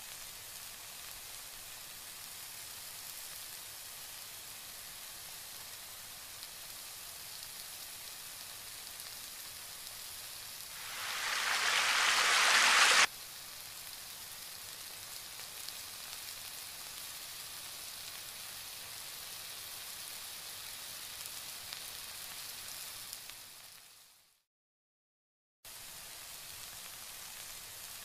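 Tomato, raw mango and sweet potato curry simmering in a metal wok, a steady sizzling hiss of the bubbling sauce. About eleven seconds in, a much louder sizzle swells for two seconds and cuts off suddenly. The sound fades out briefly a few seconds before the end, then returns.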